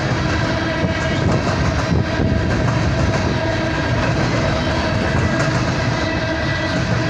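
Empty BNSF coal train rolling past close by: a steady, unbroken rumble of wheels and cars on the rails, with several steady high tones held over it.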